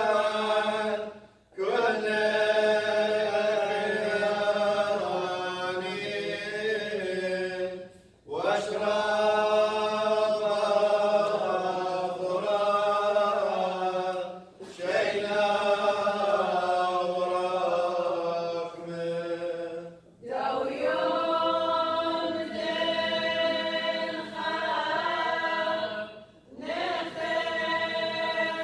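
Choir singing Assyrian Church of the East liturgical chant, in phrases of about six seconds, each broken off by a brief pause for breath.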